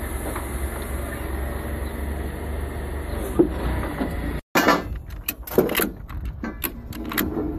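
An engine idling with a steady low hum. After a cut about four and a half seconds in, a steel ratchet-strap buckle is worked to tighten a tie-down strap, giving a series of irregular sharp clicks and clacks.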